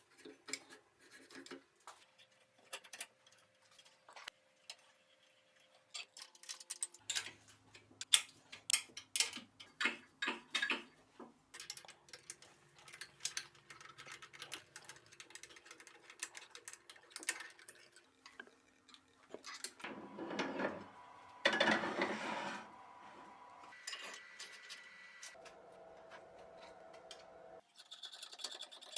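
Metal machine parts and hand tools clinking and tapping at irregular moments during hand reassembly of an old horizontal milling machine, with a longer noisy stretch about twenty seconds in.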